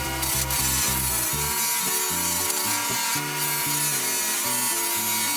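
Background music: a rhythmic line of low notes that changes pitch step by step, with a steady higher tone held throughout.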